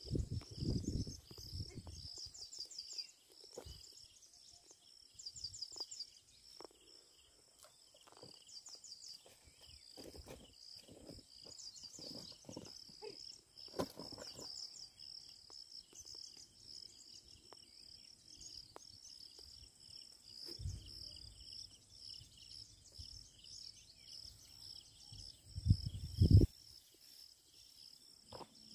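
Steady pulsing chorus of insects chirping, with quick trills repeating over it. Low rumbling bursts come in at the start and again near the end, the loudest of them shortly before the end.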